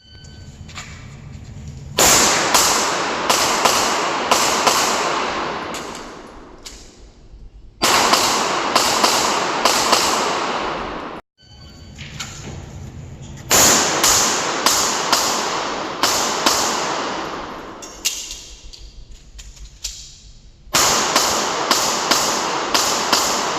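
Handgun shots fired in rapid strings of several shots each, four strings in all, each shot sharp and followed by echoing reverberation.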